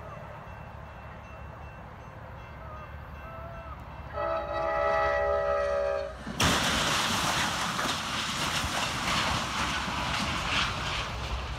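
Amtrak passenger train's horn sounding for about two seconds, then a sudden loud crash as the locomotive hits the car-transporter trailer stuck on the crossing. A rough din of smashing metal and the passing train follows.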